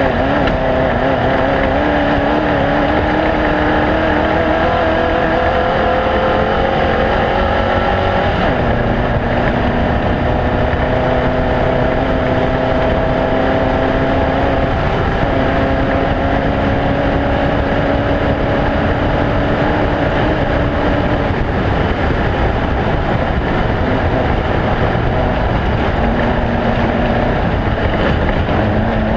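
Off-road race vehicle's engine running hard and continuously over a rough rumble and wind. Its note climbs slowly through the first eight seconds, holds steady for a long stretch, then sinks into the rumble before coming back near the end.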